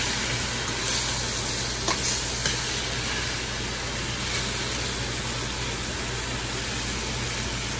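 Butter-marinated steak sizzling steadily in a smoking-hot stainless-steel skillet on high heat, with a few light clicks of a fork against the pan in the first few seconds.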